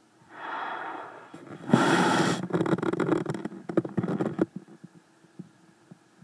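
Handling noise from the recording phone being moved: a short rush, then a louder scrape and a string of small knocks and clicks that stop about four and a half seconds in.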